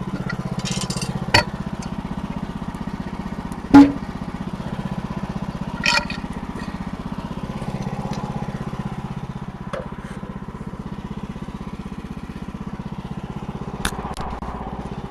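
Portable sawmill's engine running steadily at idle, broken by a few sharp knocks and clanks of metal and wood. The loudest knock comes about four seconds in.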